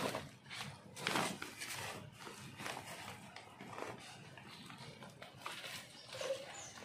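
A small hand shovel scraping and scooping damp compost from a plastic sack and tipping it into a fabric compost bag. It makes a series of irregular scrapes and rustles, about one a second.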